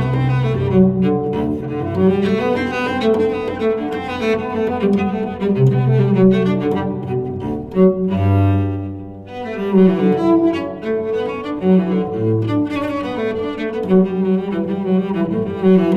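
LG G8/V50 smartphone alarm tone playing: instrumental music with a quick run of pitched string-like notes over a low line. About halfway through, a long held low note fades briefly before the busy melody starts up again.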